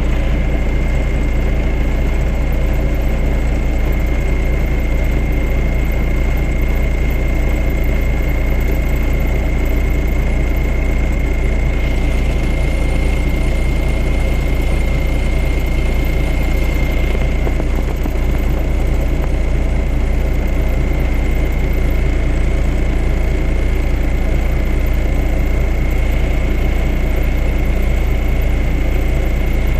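A vehicle's engine running steadily, heard from inside the cab: a loud, even low drone with a thin, steady high-pitched whine on top.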